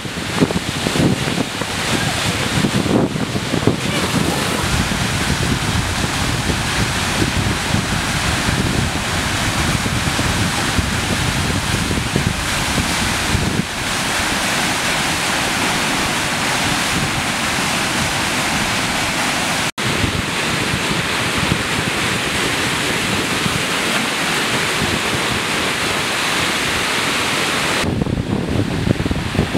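Steady rushing of a flash flood: muddy water laden with hail pouring down a canyon wash. The sound cuts out for an instant about two-thirds of the way through.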